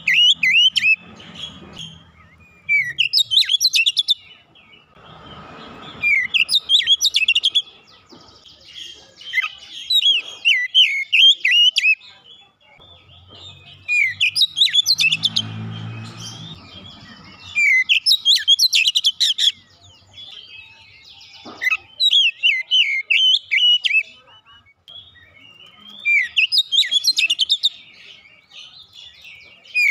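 Male Oriental magpie-robin (kacer) singing: loud bursts of rapid, varied whistled notes, one every two to four seconds with short pauses between.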